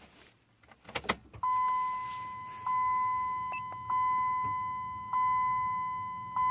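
A couple of sharp clicks as the ignition key of a 2003 Dodge Ram 2500 is turned on, then the truck's dashboard warning chime: a steady tone that is re-struck about every 1.2 seconds and fades slightly between strikes.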